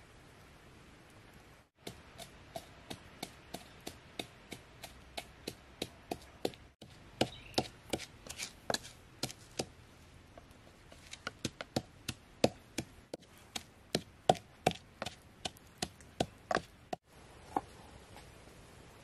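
Wood fire crackling with a run of sharp pops, about three a second, growing louder and more frequent about halfway through.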